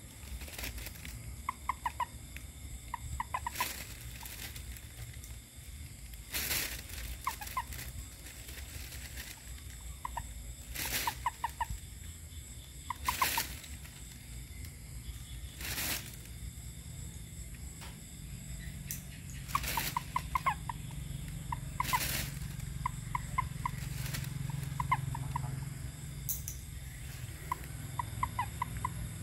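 Frogs calling at night: short croaks of three to five quick pulses, repeated every second or two. Several short, loud crackles cut in among the calls.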